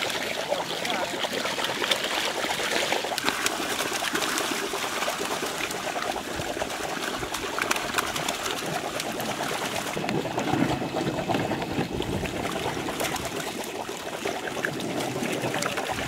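Water splashing and trickling as koi thrash in a seine net held in shallow water, with many small splashes and drips.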